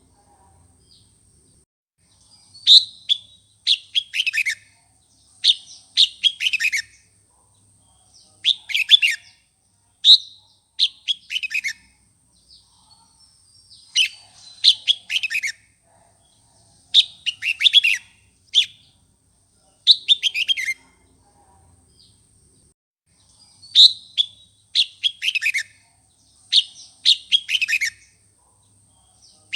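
Red-whiskered bulbul singing loud, short phrases of quick falling notes, one every one to three seconds. This is the excited song used to rouse and provoke other bulbuls.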